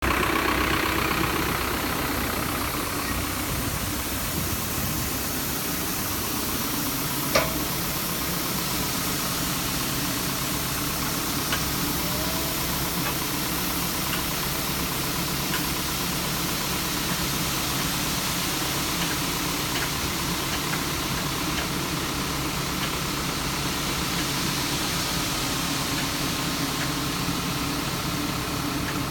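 New Holland TD85D tractor's diesel engine running steadily at idle while its hydraulics tip the trailer, with the hiss of barley pouring out of the raised trailer bed. A single sharp click about seven seconds in.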